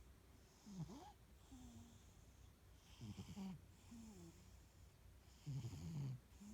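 Norwegian forest cat snoring faintly in its sleep: a short, low rattling snore on each breath every second or so, with a soft breathy hiss between them. The loudest snore comes near the end.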